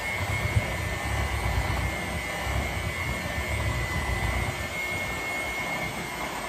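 Electric hand mixer running steadily, beating cake batter, with a thin high whine from its motor over an uneven low churning.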